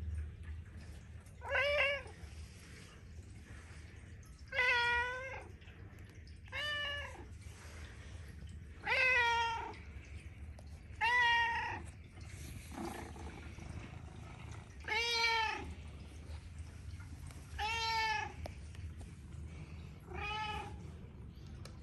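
Persian cat meowing repeatedly, about nine separate drawn-out meows a couple of seconds apart, each rising and falling in pitch, over a steady low hum.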